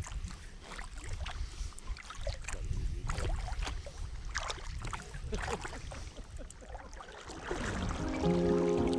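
Kayak paddle strokes splashing and dripping in the river water, irregular strokes over a low rumble. Music fades in near the end.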